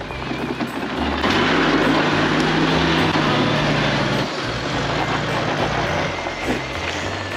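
Toyota Land Cruiser 80 series engine pulling hard under load as the 4x4 crawls up out of a dirt ditch. It grows louder about a second in, holds steady, then eases off near the end.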